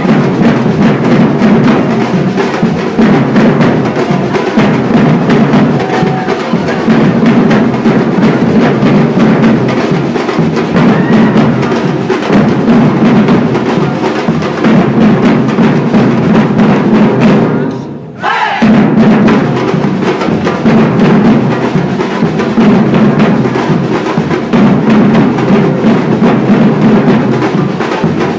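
Batucada-style percussion ensemble drumming a dense, driving groove, with deep bass drums under rapid hand-drum and stick strokes. The whole band cuts out for a moment about two thirds of the way through, then comes straight back in.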